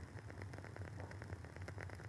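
Woodwick candle's wooden wick crackling as it burns: a fast, irregular run of small pops and ticks, with a low steady hum underneath.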